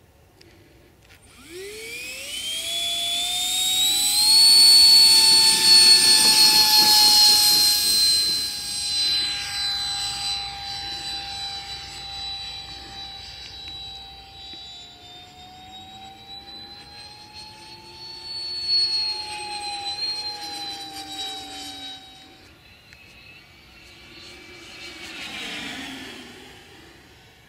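Electric ducted fan of a Sapac BAE Hawk RC jet (MB1 motor, Wemotec rotor, 5S Lipo) spooling up from standstill with a steeply rising whine about a second in, for takeoff. It then holds a steady high-pitched whine in flight, loudest a few seconds in, swelling again as it passes and fading toward the end.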